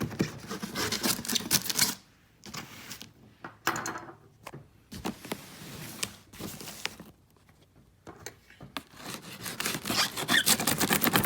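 A cardboard shipping box being opened and its packing material handled: rustling, crinkling and clicking in irregular spells with short pauses between.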